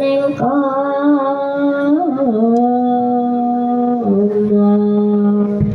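A voice singing long held notes that step down in pitch a few times, with short slides between them, in a Javanese wayang-style chant.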